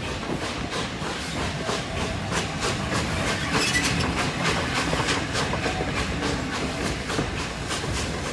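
LNER A4 Pacific steam locomotive Union of South Africa working along the line, heard from the coach directly behind it: a quick, even rhythm of steam exhaust beats over the hiss of steam and the clatter of the coach on the rails.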